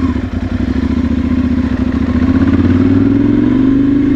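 Ducati Monster 796's air-cooled L-twin engine accelerating, its pitch rising steadily through one gear.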